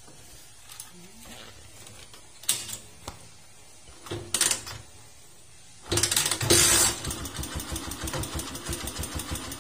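Honda TMX 125 Alpha's single-cylinder four-stroke engine starting about six seconds in, after a few short knocks, and then idling with a fast, even ticking clatter. The clatter is the 'malagitik' (clattery) running that the owner means to cure with a tune-up.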